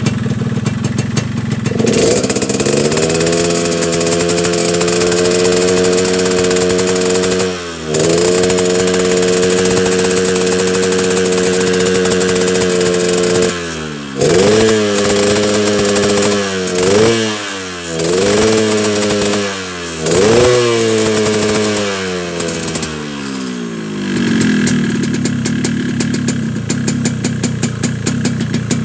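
Yamaha RX-King's two-stroke single-cylinder engine, tuned for a deep snoring ("ngorok") exhaust note. It idles roughly, is revved up and held high twice, is blipped about four times in quick bursts, then drops back to a rough idle near the end.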